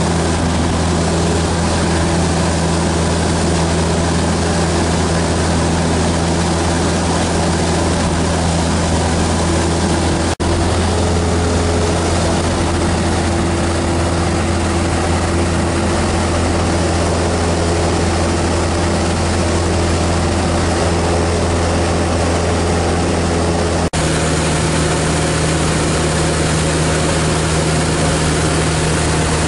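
Maule MX-7's piston engine and propeller droning steadily in flight, heard from inside the cockpit. The drone breaks off for an instant twice.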